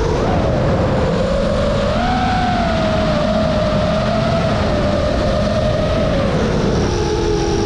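DJI FPV quadcopter's motors and propellers whining over a steady rush of air noise. The pitch rises about two seconds in, holds, then drops near the end as the throttle eases.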